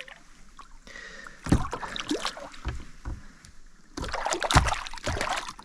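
Splashing and knocking in and around a fishing kayak as a small Australian bass is lifted out of the water by hand: two bursts of short sharp splashes and clatter, the first about a second and a half in, the second, longer one from about four seconds.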